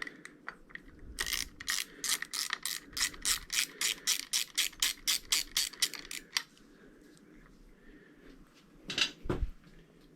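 A ratchet clicking rapidly, about five clicks a second for some five seconds, as a screw of the motorcycle's handlebar control housing clamp is driven in. A single thump about nine seconds in.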